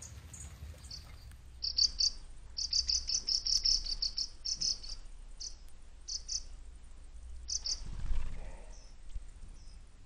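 Dark-eyed juncos chirping: quick runs of short, high notes in bunches, densest in the first half, then scattered single chirps. A low bump about eight seconds in.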